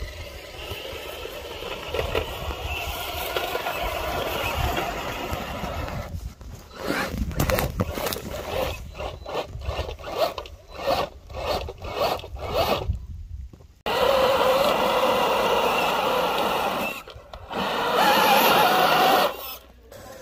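Radio-controlled scale crawler trucks driving over dirt and rock. Electric motors and geared drivetrains whine in short throttle bursts with gaps, then in two longer steady pulls that stop abruptly, and tyres scrub on the ground.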